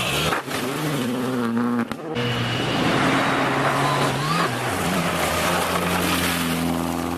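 Rally car engine revving hard and changing pitch through the gears, over a constant rush of tyre and road noise. The sound breaks off abruptly twice in the first two seconds, as clips change.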